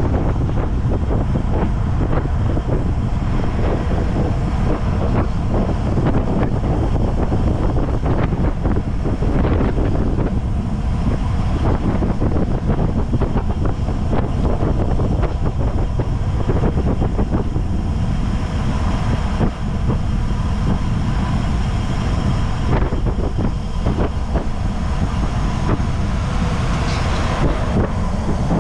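Steady heavy wind rumbling over the microphone of a camera moving at cycling speed on a road bike.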